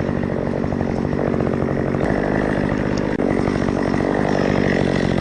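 Chainsaw engine running steadily at speed.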